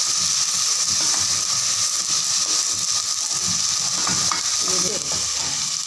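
Chopped onions frying in hot oil in a steel pot, a steady sizzle, while a wooden spoon stirs them around the pot.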